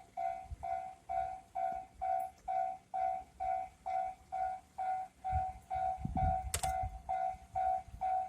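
Railway level crossing warning bell ringing in a steady, even beat of about two dings a second. A train's low rumble comes in from about five seconds in as it nears the crossing.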